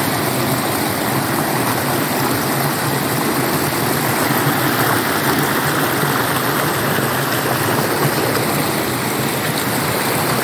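Muddy floodwater rushing down the spillway channel of an overflowing farm dam and pouring over a small ledge: a steady, loud rush of water.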